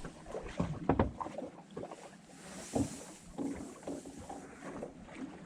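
Water splashing and lapping, with scattered irregular knocks and splashes, as a hooked speckled trout is brought to the boat and landed.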